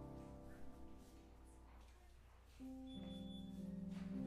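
Electric stage keyboard (Nord Electro) playing slow, sustained chords: one struck at the start that fades, and a second, louder one about two and a half seconds in.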